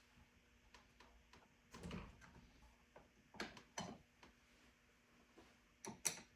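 Near silence broken by a few light clicks and knocks of things being handled: a dull knock about two seconds in, two sharp clicks a little later, and a louder pair of clicks near the end.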